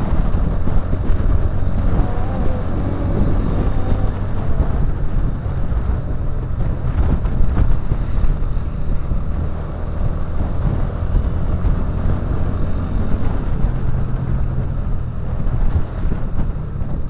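Motorcycle engine running steadily at riding speed, heard from on board, with wind buffeting the microphone.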